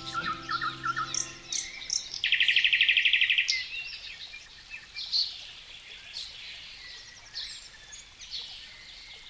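Wild birds chirping and calling, with one loud rapid trill of quickly repeated notes lasting about a second, starting about two seconds in. The closing background music fades out in the first second or so.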